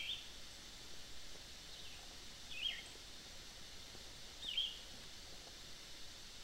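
A bird calling: short chirping notes, three of them about two seconds apart, over a steady background hiss.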